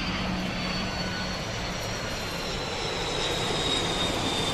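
Twin-engine wide-body jet airliner passing low on final approach: steady turbofan engine noise with a high whine that slowly falls in pitch, growing a little louder near the end.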